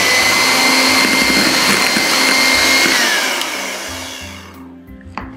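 Electric hand mixer running, its twin beaters whisking a sponge-cake batter of beaten egg whites, yolks and sugar in a plastic bowl: a steady motor whine over the whirr of the beaters. About three seconds in the whine drops in pitch as the mixer slows, and it dies away before the end.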